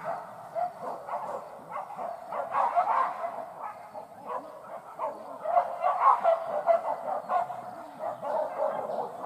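A pack of hunting dogs barking and yelping on a wild boar chase: many overlapping yelps in a continuous chorus, swelling about a third of the way in and again past the middle.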